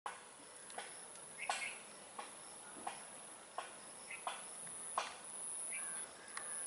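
Steady high-pitched insect drone, with short sharp chirps repeating about every 0.7 seconds.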